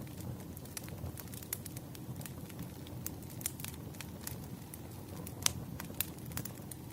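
Campfire burning, a steady low rumble with irregular sharp crackles and pops from the wood, one louder pop about five and a half seconds in.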